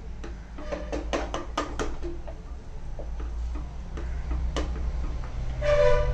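Wooden spatula knocking and clicking against the sides of an aluminium pressure cooker as a thin rice-and-lentil gruel is stirred, a quick run of knocks in the first two seconds, then a few sparser taps. A steady low hum lies underneath, and a short pitched sound comes near the end.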